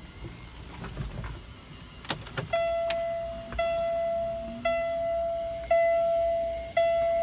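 A few clicks as the ignition key is turned on, then the Kenworth T680's dashboard warning buzzer sounds a steady beep, repeated five times about a second apart, while the instrument cluster cycles through its key-on self-test. The engine is not yet running.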